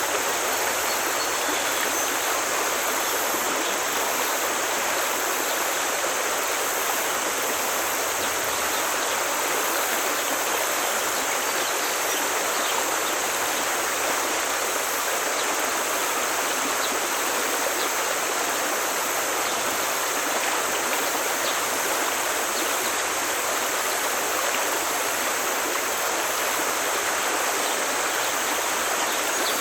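Forest stream flowing: a steady, even rush of water.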